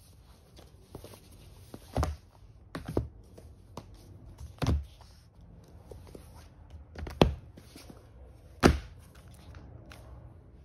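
Heavy hardcover books set down one at a time onto a growing stack, piled on as a press: about five heavy thuds, with lighter knocks and the rustle of handling between them.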